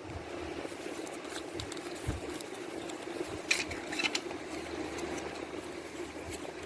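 Faint scattered clicks and taps of a plastic cassette tape being handled, with a small cluster of clicks a few seconds in, over a steady low hum.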